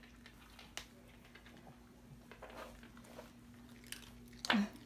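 Small dogs crunching and chewing hard cheese treats that look like little crackers, with many small crisp clicks. A brief louder sound that falls in pitch comes near the end.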